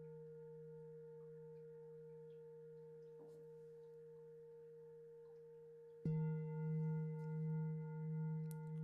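Peter Hess singing bowl ringing out with a low hum and several higher overtones, the upper ones wavering slowly as the tone fades. About six seconds in it is struck again and rings out louder, with extra high overtones.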